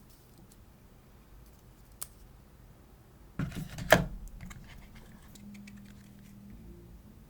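Hands handling an iPhone and its packaging: a single click about two seconds in, then a short clatter of knocks and rattles about three and a half seconds in, ending in a sharp tap, followed by a few light ticks.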